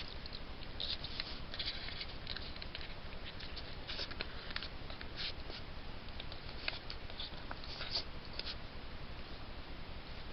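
A fisher feeding on a trapped beaver's carcass: irregular small clicks and crackles of chewing and tearing, over a steady hiss.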